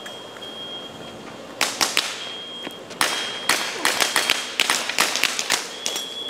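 A run of sharp, irregular knocks and taps, several a second in clusters, beginning about a second and a half in. A faint, steady high-pitched tone comes and goes under them.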